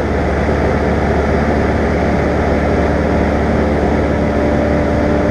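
Cessna 172's piston engine and propeller running steadily in flight, a constant drone heard from inside the cockpit.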